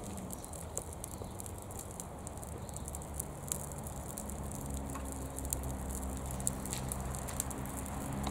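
Flames burning in an air fryer, crackling with many small sharp pops. A low steady electrical hum joins it a few seconds in and grows stronger toward the end.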